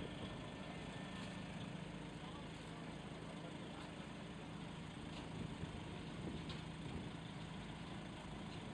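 Diesel engine of a heavy-haulage truck running steadily at low speed, a low even drone, with a few faint clicks.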